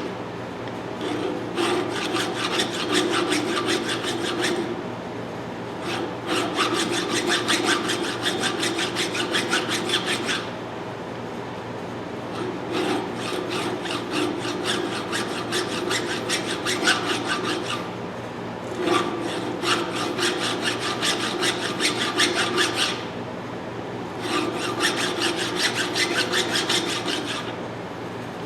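Hand file rasping across the steel teeth of a pipe wrench jaw: quick repeated strokes in runs of a few seconds with short pauses between. The teeth are being re-sharpened because they are pitted and rusted.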